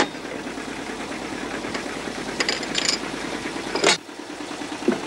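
Railway point levers being worked by hand: a click, a short metal rattle about halfway through, then a loud clunk as a lever goes over, with a smaller thump near the end. A steady engine runs underneath.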